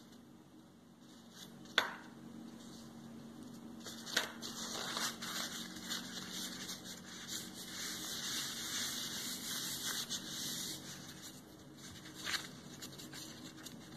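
Paper kitchen towel rustling as it is folded over a damp, dye-soaked piece of beading foundation and pressed and rubbed flat by hand to blot off the excess acrylic colour. Three sharp taps stand out, about two seconds in, four seconds in and near the end.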